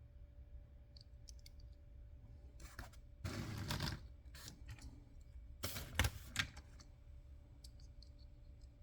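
Small objects, most likely toy vehicles, being handled. There are light scattered clicks, a louder rustling scrape about three seconds in, and a cluster of sharper knocks and rustling around six seconds in.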